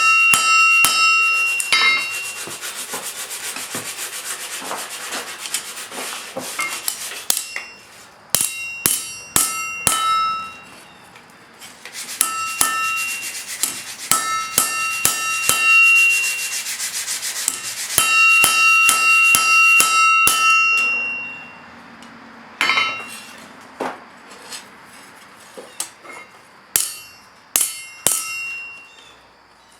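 Hand metalworking on a steel blade: sharp metallic strikes that ring on, with stretches of fast rasping strokes in between.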